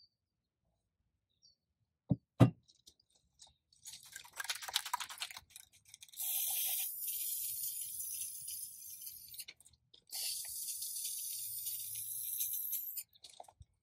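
Aerosol spray-paint can: two sharp knocks, then the can is shaken with its mixing ball rattling, then two long steady hisses of spray with a short break between.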